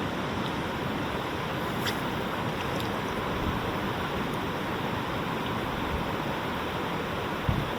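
Steady rush of flowing creek water, with a brief low thump near the end.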